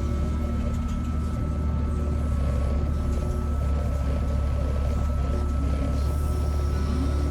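NM-E30 mini excavator's diesel engine running steadily under work, a constant low rumble with a thin steady whine above it.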